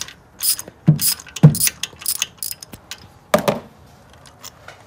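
Hand ratchet clicking in short strokes on a long extension and 5/8 spark plug socket as a spark plug is loosened in its well. The clicking stops after about three and a half seconds.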